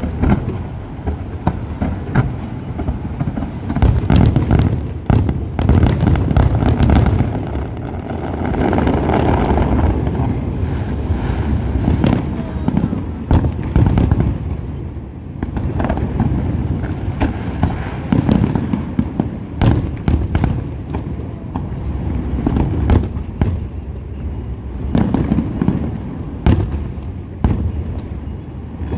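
Aerial fireworks shells bursting in quick succession: repeated booms and sharp cracks over a continuous low rumble, thickest in a rapid volley about four to seven seconds in.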